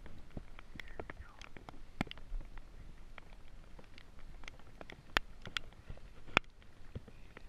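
A hooked trout splashing and thrashing at the surface of a stream while it is played on a fly line, heard as scattered sharp clicks and small splashes with no steady rhythm. The loudest two come a little after five and six seconds in.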